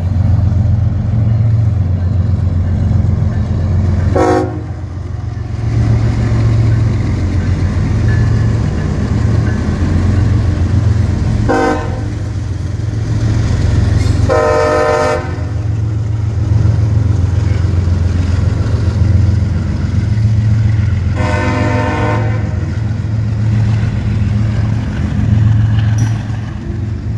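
CSX freight train passing close by: the diesel locomotives give a steady low rumble, and the air horn sounds four times, short blasts about 4 and 11 seconds in, then longer ones around 14 and 21 seconds, as the autorack cars roll past.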